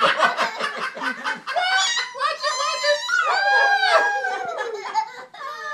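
People laughing hard: rapid bursts of laughter, then long high-pitched shrieking laughs that rise and fall.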